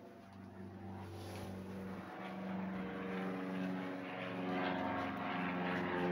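A steady engine drone of constant pitch, growing gradually louder throughout.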